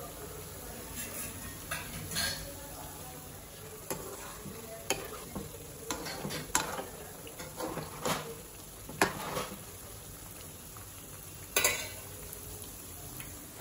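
Vegetable pakoda batter deep-frying in hot oil in a kadai, a steady sizzle. A metal spoon stirs and knocks against the pan several times from about four seconds in, loudest near nine seconds and again near eleven and a half.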